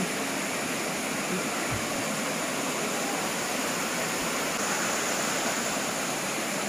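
Water running steadily over a low concrete weir into a pool.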